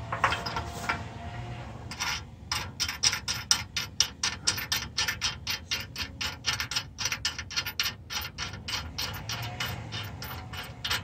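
Hand ratchet wrench tightening a flange nut onto a mounting bolt. It clicks in a steady run of about four to five clicks a second, starting about two seconds in.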